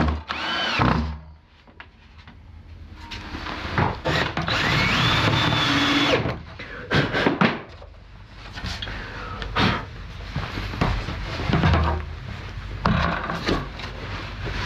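Cordless drill driving screws into wood in two short runs: a brief whine just after the start, and a longer one about four seconds in that rises as the motor spins up and then holds steady. Knocks and clatter of wooden panels being handled follow.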